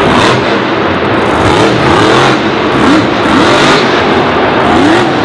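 Monster truck's supercharged V8 engine revving hard, the throttle blipped up and down over and over, roughly every two-thirds of a second, to hold the truck balanced standing on its rear wheels.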